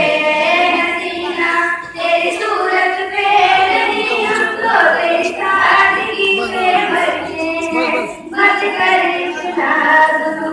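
A girl singing into a microphone: long held notes in phrases with short breaths between them.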